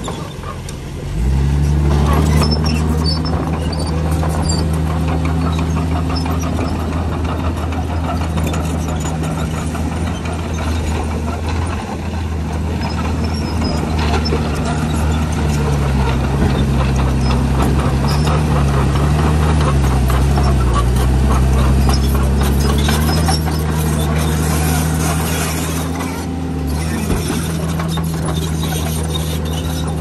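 Komatsu bulldozer's diesel engine running steadily. Its pitch dips and wavers for a few seconds in the middle as it takes load. The sound drops briefly just after the start and again near the end.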